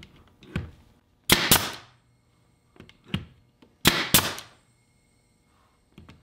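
Pneumatic 18-gauge brad nailer (Porter-Cable) firing twice into white oak, about two and a half seconds apart. Each shot is a sharp crack trailing off in a short hiss.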